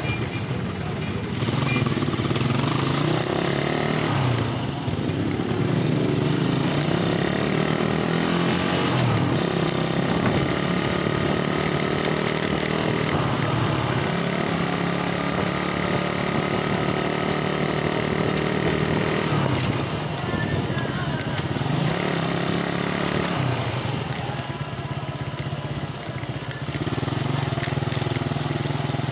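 Suzuki Raider motorcycle's single-cylinder four-stroke engine accelerating hard from a stop: the pitch climbs through each gear and drops back at every upshift, about five times.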